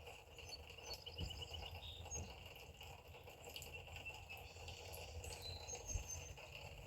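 Faint outdoor ambience of insects chirping steadily, with a few soft low thumps.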